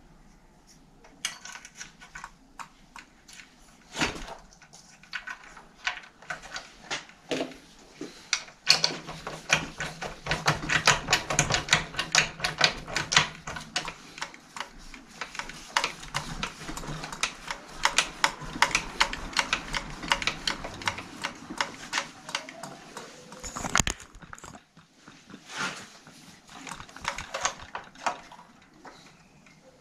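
Rapid metallic ratcheting clicks from work at a bicycle's rear hub and axle: scattered at first, then a fast, dense run through the middle, with a couple of single knocks.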